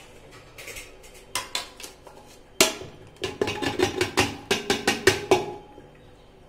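Soaked lentils being scraped off a plate into an aluminium pressure cooker with a spoon: one sharp knock about two and a half seconds in, then a quick run of metallic clinks and taps lasting about two seconds.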